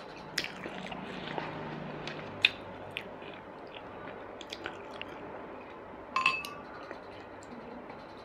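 Close-up chewing of food with wet mouth clicks, and wooden chopsticks tapping the ceramic bowls. The sharpest click comes about two and a half seconds in, and a short ringing clink comes about six seconds in.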